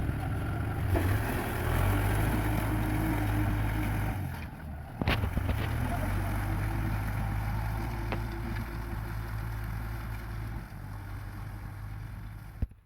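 Kubota M6040 tractor's diesel engine running steadily, with a sharp click about five seconds in.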